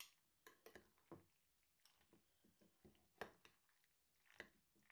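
Metal spoon and fork tossing mayonnaise-dressed macaroni salad in a glass container: soft squelching with scattered light clicks of metal against glass, the sharpest a little past three seconds in.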